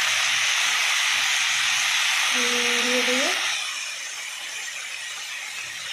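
A steady hiss starts abruptly and cuts off about three and a half seconds in. Near its end a short low hum rises in pitch.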